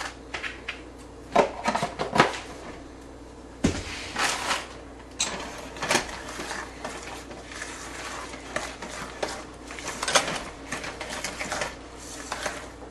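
Oats and cookie dough being stirred in a stainless steel mixing bowl, with irregular clinks and scrapes of a metal spoon against the bowl and one louder knock partway through.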